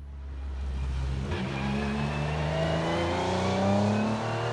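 Metro 6R4 Group B rally car's 3.0-litre V6 engine running low and steady, then from about a second in accelerating, its note climbing steadily in pitch.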